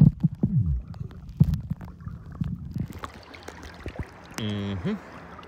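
Muffled underwater sloshing and knocking of seawater against a phone's microphone held below the surface. About three seconds in, the phone comes up out of the water, and the sound changes to an even open-air hiss of wind and lapping water. Near the end there is a brief pitched tone lasting about half a second.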